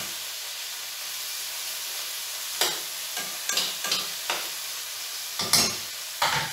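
Chicken pieces sizzling steadily in a hot frying pan, with a handful of sharp knocks against the pan in the second half.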